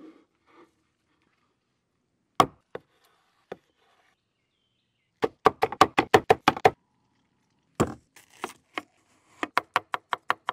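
Kitchen knife chopping on a wooden cutting board through smoked beef short rib and onion: a single sharp knock a couple of seconds in, then a quick run of about ten chops, and two more runs of chops near the end.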